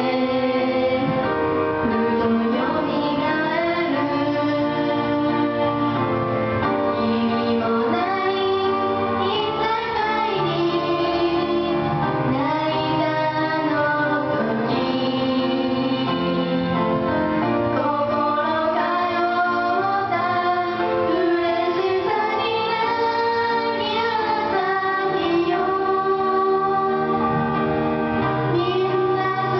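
Two young girls singing a graduation song as a duet into microphones over a karaoke backing track, trying for a harmony part.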